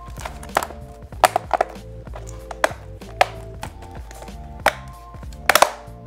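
Plastic bottom cover of a Dell Chromebook 11 3110 being pressed down and snapped into place around its edges: irregular sharp clicks and taps, the loudest cluster near the end, over background music.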